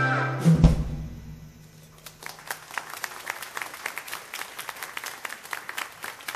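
The backing synthesizer's held chord stops and a last loud drum hit on the kit rings off, then an audience claps and applauds from about two seconds in.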